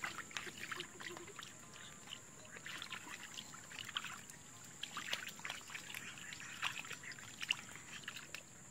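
Hands groping through shallow muddy water: irregular small splashes and sloshes of water and mud.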